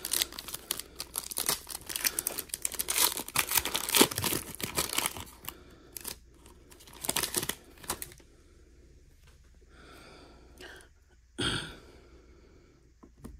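A foil trading-card pack wrapper being torn open by hand, with dense crinkling and tearing for about five seconds and another burst of crinkling a couple of seconds later. A single knock comes near the end.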